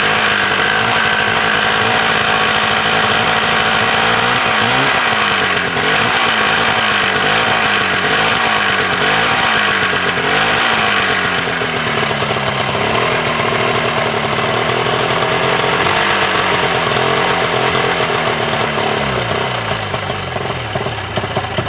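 1987 Ski-Doo Safari 377 snowmobile's two-stroke engine running, its revs rising and falling over and over, then sagging near the end as it starves for fuel: the fuel line draws air and the carburetor bowl isn't filling.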